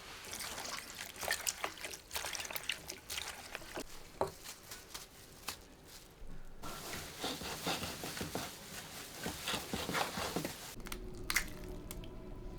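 Liquid being poured and dripping, with wet squishing and irregular small knocks and clicks of kitchen utensils.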